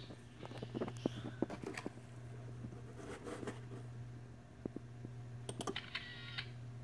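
Scattered light clicks and taps, with a cluster of sharper clicks about five and a half seconds in as the computer mouse clicks the software's Capture button, over a steady low hum. A brief high-pitched sound follows just after six seconds.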